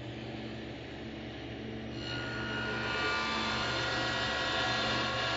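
Table saw starting and running with a steady whine that grows louder and brighter over the first two seconds or so, then holds steady. The saw is running for one of a series of shallow cove-cutting passes, with the blade raised a sixteenth to an eighth of an inch each pass.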